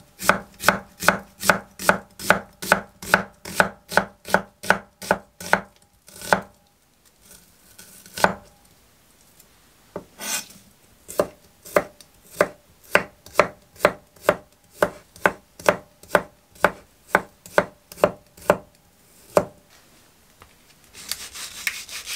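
A kitchen knife slicing through onion and then garlic cloves onto an end-grain wooden cutting board: a steady run of sharp knocks, about three a second, stops briefly and then starts again. Near the end there is a scraping rustle.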